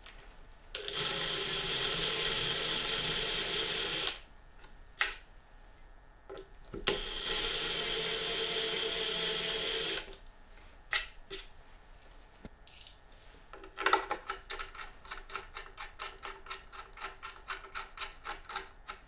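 Power drill with a countersink bit running as it cuts countersinks into a wooden board: two steady runs of about three seconds each, the second starting about seven seconds in. Near the end comes a quick, even run of clicks, about five a second, as a flat-head screw is driven by hand with a screwdriver.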